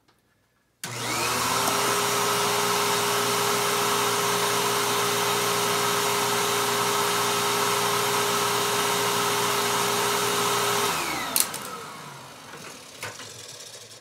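Royal upright vacuum cleaner, a rebadged Hoover Tempo, switched on about a second in, its motor whining up to speed and then running steadily with a strong steady tone while sealed on an airflow test box. Near the end it is switched off and winds down with a falling whine, and a sharp click follows.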